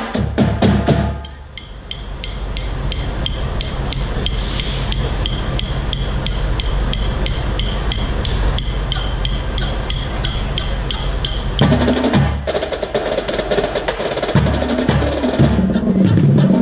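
Marching drumline battery of snare drums, tenor drums and bass drums playing. There are dense full-line strokes at the start and again from about twelve seconds in. Between them comes a long held roll under a steady woodblock-like click, about four a second.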